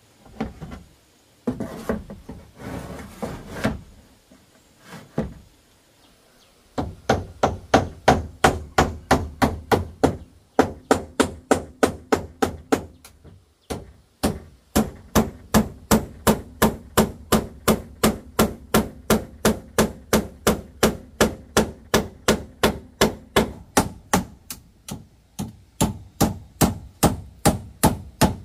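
Hammer driving roofing nails through corrugated roofing sheets into wooden purlins. From about seven seconds in come steady, sharp strikes, about three a second, with one short pause partway through.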